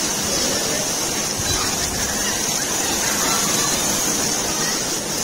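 Rain falling steadily onto a swimming pool's water surface, an even hiss.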